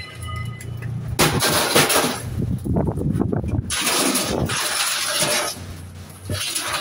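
A scrapped sheet-metal appliance being dragged out of a van and set down on scrap: harsh metal scraping from about a second in, a run of clattering knocks in the middle, then more scraping.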